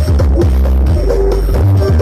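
Loud DJ dance music played through a large carnival sound system, with deep sustained bass notes under a melody.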